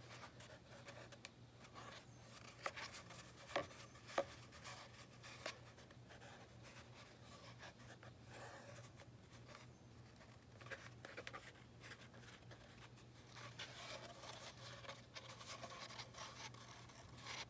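Faint rustling and rubbing of yarn being wound around a cardboard paper towel tube, with a few light ticks of handling a few seconds in, over a low steady hum.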